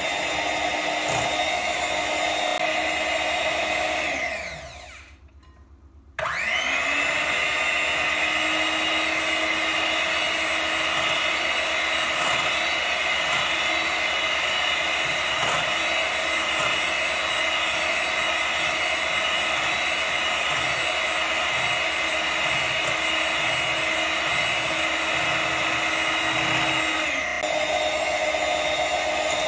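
Electric hand mixer beating whipping cream in a glass bowl to whip it until fluffy. The motor winds down and stops about four seconds in, spins back up about two seconds later and then runs steadily, with a slight change in its tone near the end.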